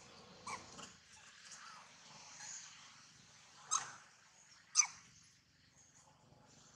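Short, high squeaks from a baby macaque: a soft one near the start and two sharper, louder ones past the middle, the last sliding down in pitch. Faint low rustling runs underneath.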